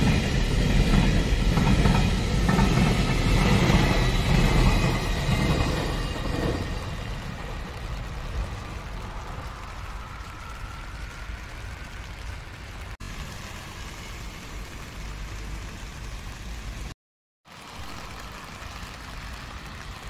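A passing vehicle's rumble fades away over the first six seconds, leaving the steady hiss of rain on a wet road.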